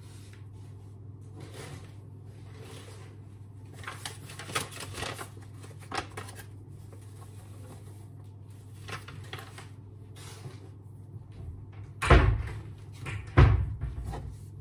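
Kitchen cupboard door being opened and closed and things handled, then flour shaken from a paper bag into a greased metal springform cake pan. Two loud knocks about a second and a half apart near the end, over a steady low hum.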